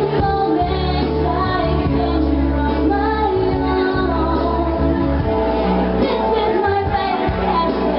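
A woman singing into a microphone over backing music, amplified through loudspeakers.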